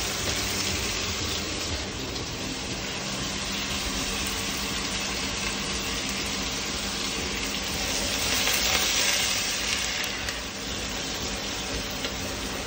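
Onions frying in hot oil in a pan: a steady sizzle that swells louder for a couple of seconds past the middle.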